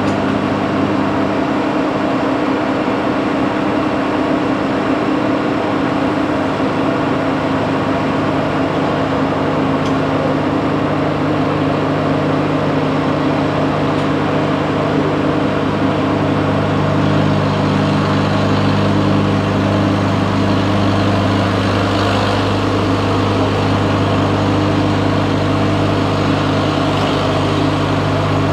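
Lucas model 41 horizontal boring mill running steadily, its cutter climb-milling the edge of a plywood disc as the rotary table turns. A steady machine hum sits under the rough, continuous noise of the cutter chewing through the wood.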